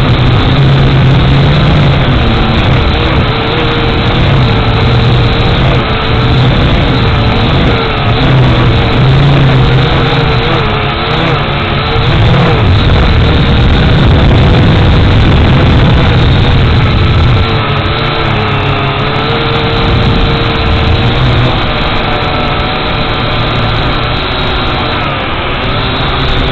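X183 quadcopter's electric motors and propellers buzzing steadily in flight, heard close up from its on-board camera, the pitch wavering up and down as the throttle changes.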